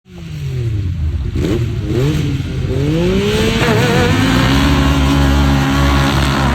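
Ford 5.0 Coyote V8 running: the revs dip, rise, then settle into a steady idle about four seconds in.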